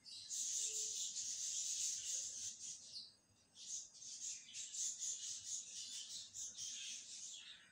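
Minced meat, onions and spices sizzling in hot oil in a nonstick wok while a plastic spatula stirs them. The sizzle comes in two spells, with a brief lull about three seconds in.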